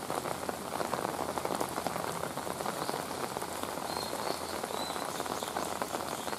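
Steady rain falling on rock and wet ground, a dense patter of many small drops. A few faint, short, high chirps come about four seconds in.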